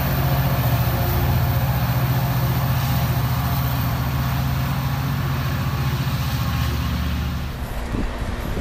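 F59PHI diesel locomotive's EMD two-stroke V12 engine running with a steady low drone as the train pulls away, fading slightly. Near the end the drone cuts off.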